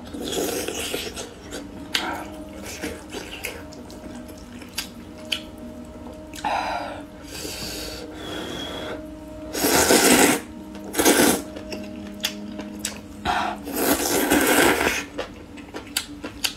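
Close-miked eating of spicy rice noodle soup: soft wet chewing and small mouth clicks, then several loud noodle slurps in the second half, the longest near the end.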